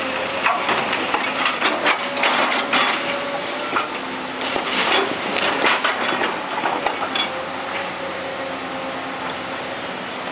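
Excavator-mounted hydraulic rock breaker working on rock: irregular sharp cracks and clattering over roughly the first six seconds, then mostly the steady running of the machine.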